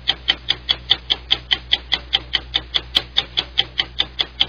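Sped-up clock ticking sound effect, quick even ticks at about five a second, over a low steady hum.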